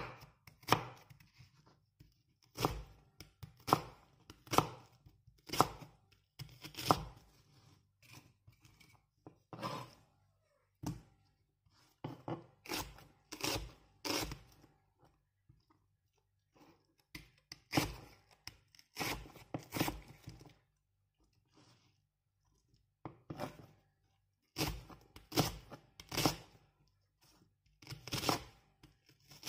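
Kitchen knife slicing through a peeled white onion on a wooden cutting board, each cut a crisp stroke through the layers and onto the board. The cuts come in irregular runs with short pauses between them.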